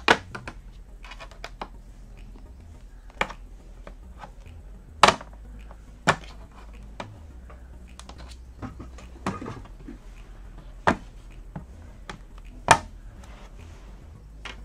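Bottom cover of a Lenovo Yoga 7 14ITL5 laptop being pried off with an opening tool: a series of sharp snaps, a second or more apart, as its retaining clips pop free one by one, with light scraping between them.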